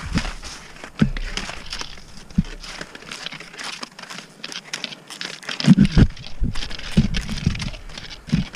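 Cross-country skis scraping over snow and wet asphalt, with many sharp clicks of ski-pole tips planting. A few dull thumps come in about six seconds in.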